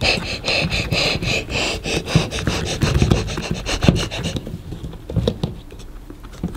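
Fingers rapidly rubbing and scratching at an L.O.L. Surprise Fuzzy Pet toy in its plastic bottle-bath, working the fuzz coating off the plastic figure, several strokes a second. The rubbing stops about four seconds in, leaving a few light clicks and handling sounds.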